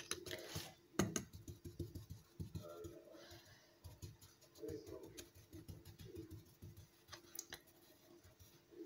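A fork tapping and scraping with light clicks on a glass baking dish and the crumb-topped surface of a potato gâteau as the top is smoothed, the sharpest clicks at the start and about a second in.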